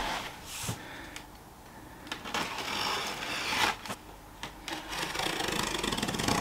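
Sharp kitchen knife slitting the packing tape along the top of a cardboard box: two long scratchy strokes, the first about two seconds in, the second near the end.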